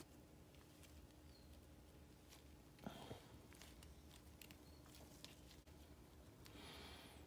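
Near silence, with faint small clicks and soft rustles from gloved hands handling a new seal and small metal parts: a brief one about three seconds in and a longer soft rustle near the end.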